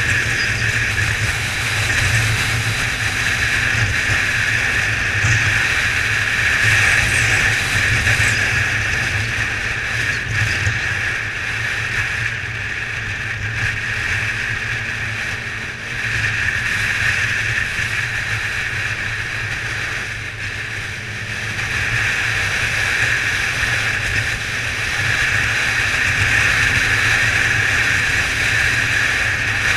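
Kawasaki ZZR 1400's inline-four engine running at cruising speed, under steady wind rush on the microphone while riding.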